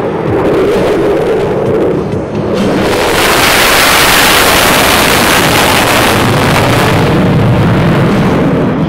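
F-16 Fighting Falcon jet making a fast pass. Its engine noise swells suddenly about three seconds in to a loud, full roar, holds for several seconds, then eases to a low rumble near the end. Faint public-address music plays underneath before the jet arrives.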